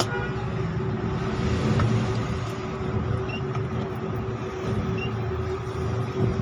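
CRT TV speaker putting out a steady hum over a rough rumbling noise instead of clear audio on the cable/antenna input: the RF sound fault is still present after the sound ICs were cleaned.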